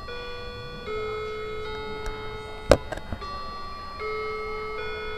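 A simple electronic tune of sustained tones, the pitch stepping to a new note every second or so. A single sharp click falls near the middle.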